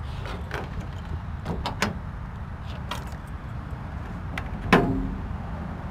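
A few light clicks and knocks, then one loud slam about three-quarters of the way in, a truck door shutting, with a short ring after it, over a steady low rumble.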